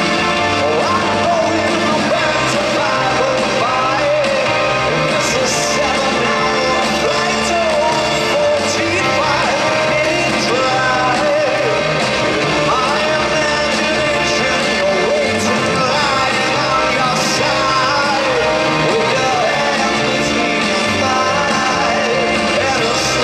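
Rock band playing live with singing over electric guitars and drums, loud and steady, heard from high in the stands of a large arena.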